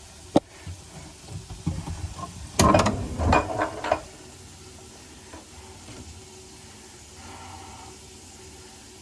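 A sharp click, then a few seconds of rushing, splashing water from the faucet into the sink basin and down the newly fitted drain, run to test the tightened joints for leaks; it stops about four seconds in, leaving a faint steady hum.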